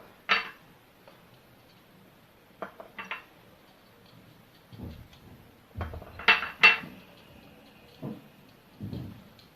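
Peeled garlic cloves dropped one at a time into a glass jar, clicking and clinking against the glass, with softer knocks in between. The loudest pair of clinks comes about two-thirds of the way through, the second ringing briefly.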